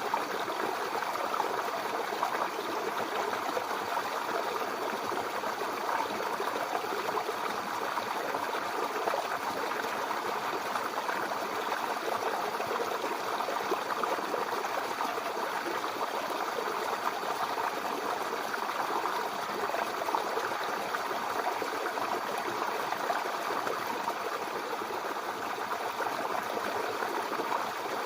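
Mountain river running over stones: a steady, even rush of flowing water with no breaks.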